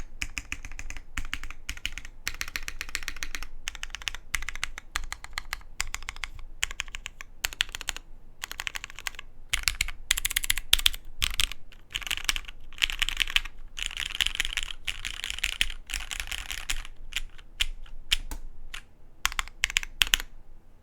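Continuous typing on a custom mechanical keyboard with lubed retooled Cherry MX Black linear switches on an aluminum plate and GMK keycaps: fast runs of keystrokes broken by short pauses, with a few louder strokes, likely the spacebar or other stabilized keys, in the middle and near the end.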